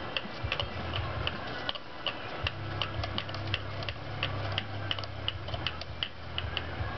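Small sharp metallic ticks, irregular, a few a second, as a hex key turns the pistol-grip screw of a .22LR rifle out counterclockwise, over a steady low hum.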